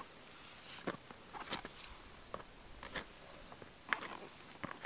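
Footsteps crunching and scuffing on gritty sandstone and sand as a hiker scrambles up a steep slope: about six separate, irregularly spaced crunches.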